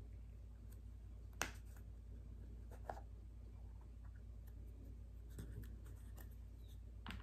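Small plastic screw-top lid being twisted off a little container of salt: faint handling with two sharp clicks about a second and a half apart, then a few lighter ticks.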